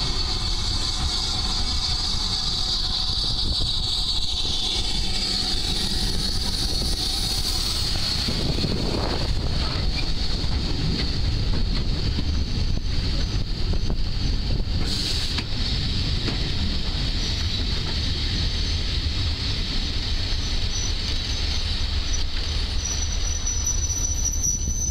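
Hampshire DEMU (Class 205 'Thumper') diesel-electric train with its English Electric diesel engine running as a steady low rumble. Wind buffets the microphone.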